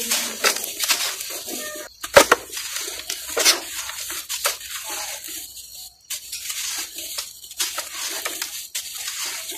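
Lumps of dry red dirt crushed and crumbled by hand, with crisp, gritty crunches and the crumbs trickling down onto loose dirt. The sharpest crunches come about two and three and a half seconds in.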